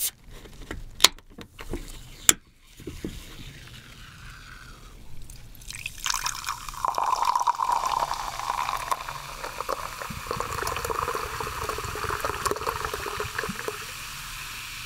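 Can of Coca-Cola Zero Sugar: a few sharp clicks in the first two or three seconds as the can is opened. From about six seconds in, cola pours from the can into a glass mug in a steady stream, fizzing as it fills.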